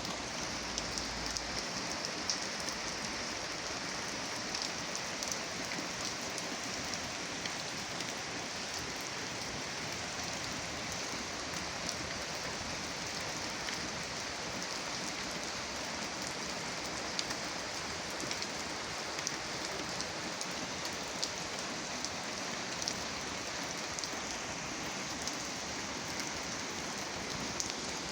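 Steady rain falling: an even hiss with many small drop taps scattered through it.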